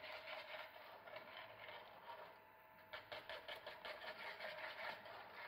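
Wire coil whisk stirring custard cream in a stainless steel saucepan, a faint rapid scraping and tapping against the pan that eases off briefly about two and a half seconds in. The custard is being stirred constantly as it heats toward thickening, so that it doesn't burn.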